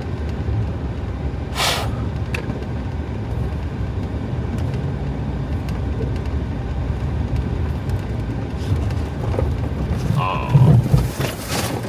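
Pickup truck driving through deep snow, heard inside the cab: a steady low engine and road rumble. A brief hiss comes about a second and a half in, and near the end there is a heavy thump followed by a loud hiss.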